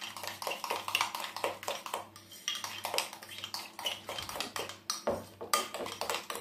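A spoon clinking and scraping against a glass bowl while stirring a thick yogurt-and-mustard dip, with quick, irregular clinks several times a second.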